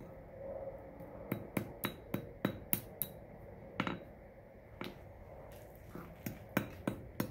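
Masonry hammer tapping pieces of bottle glass on an anvil, crushing them into small chips: a string of light, sharp clinks in quick runs with short pauses.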